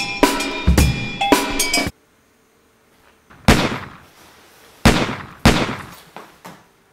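Drum-kit music that cuts off suddenly about two seconds in, followed by three sharp, loud bangs, each dying away: the first about a second and a half after the music stops, the other two a second or so later, half a second apart.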